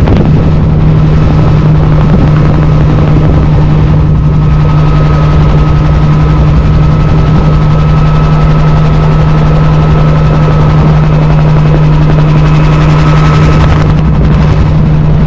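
Bell 47 helicopter in flight, heard from inside its doorless cabin: the piston engine and rotors make a loud, steady drone with a constant low hum, over a rush of noise.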